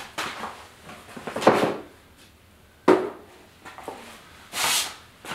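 Scattered knocks, clatters and rustles of tools being picked up and handled, with a sharp knock about three seconds in and a brief scratchy hiss near the end.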